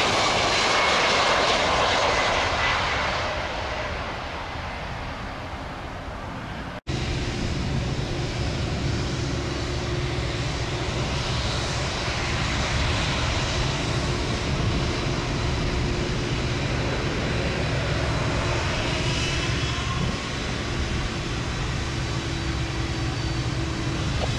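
Jet noise from a Boeing 767 freighter on final approach, fading over the first few seconds. After a sudden cut, a Boeing 747-8 freighter taxiing, its four engines at low thrust making a steady deep rumble with a faint whine.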